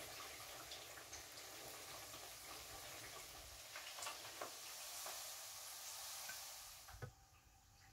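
Faint steady hissing crackle with a few soft ticks, like light sizzling, fading away about seven seconds in.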